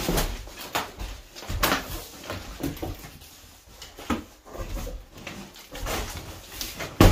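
A large cardboard box holding a packed inflatable boat being tipped and shifted on a laminate floor: cardboard scraping and rustling with irregular knocks, and a loud thump near the end.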